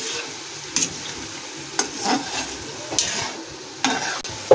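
Kababs deep-frying in a kadhai of hot oil with a steady sizzle. A metal slotted spoon clinks and scrapes against the pan about once a second as the kababs are turned.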